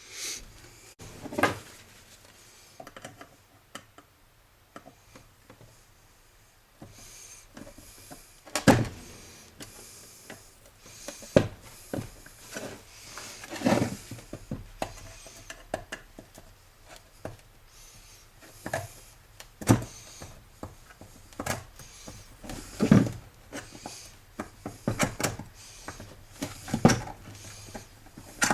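Irregular clicks, knocks and clatter of a vacuum cleaner being taken apart by hand, its plastic and metal parts knocking against each other and the work surface, with a sharp knock every second or two.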